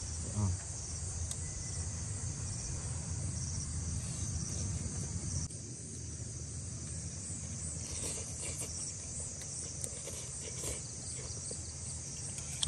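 Steady, high-pitched chorus of insects, with a low rumble under it that drops away about halfway through.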